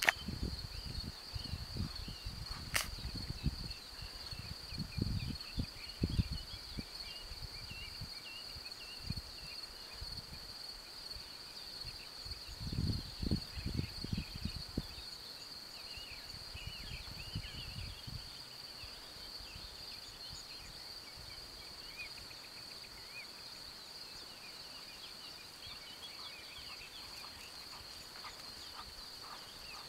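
Crickets chirring in one steady high tone throughout, with faint short bird chirps above it. Gusts of wind buffet the microphone in the first half, loudest about 5 and 13 seconds in.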